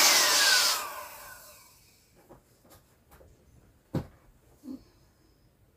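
Small electric air pump switched off: its motor whine falls in pitch and fades out over about a second and a half as it spins down. Then a few faint clicks of handling and a sharp knock about four seconds in.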